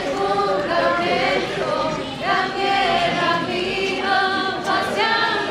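A choir of voices singing together, with long held notes in harmony.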